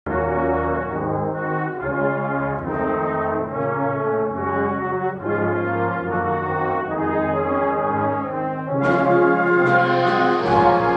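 Brass band of tubas, trombones and French horns playing a passage of sustained chords, the notes moving about once a second. Near the end the sound grows louder and brighter.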